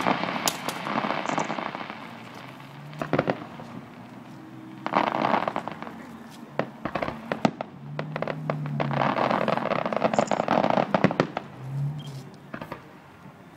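Aerial fireworks shells bursting: sharp bangs at irregular intervals, with spells of dense crackling between them.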